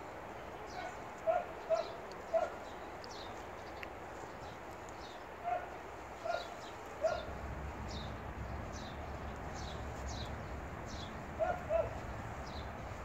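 A dog barking: short barks in groups of two or three, a few seconds apart. Under them a bird repeats a short, high, falling chirp over and over.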